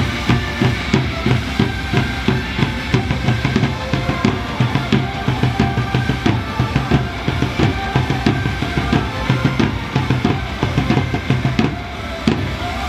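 Upbeat baseball cheer song with a heavy, steady drum beat.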